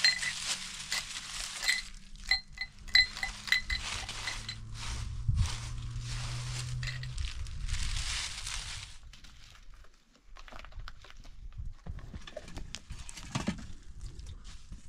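Light metallic clinks, a quick run of them about two seconds in, over a steady hiss that stops about nine seconds in, followed by scattered soft clicks and knocks.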